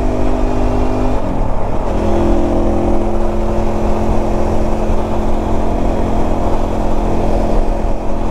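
Motorcycle engine running steadily while riding, with a constant wind rumble on the microphone; its note wavers about one to two seconds in, then holds steady.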